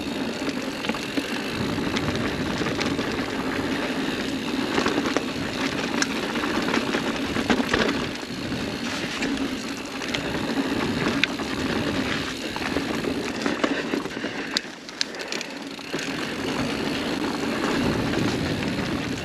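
Mountain bike rolling along a packed-dirt singletrack: steady tyre noise over dirt and leaves, with scattered sharp clicks and rattles from the bike over bumps. The noise eases briefly about three quarters of the way through.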